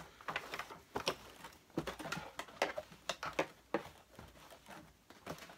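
A dry cloth wiped over the plastic body of an Electrolux The Boss vacuum cleaner: a string of irregular short rubbing strokes and light knocks, thinning out after about four seconds.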